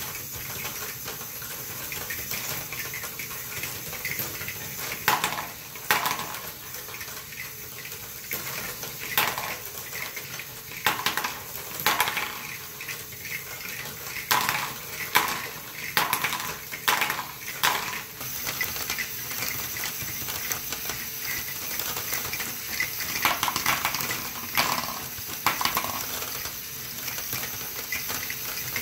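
LEGO Great Ball Contraption stepper module running: a steady motor whir under irregular clicks and clacks as the marbles knock against each other and against the plastic steps and hopper.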